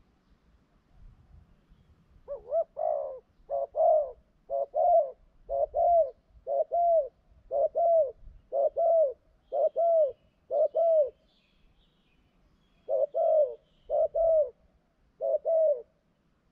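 Spotted dove cooing: a long run of short, repeated coos, about one a second, starting a couple of seconds in, with a brief pause about two-thirds of the way through.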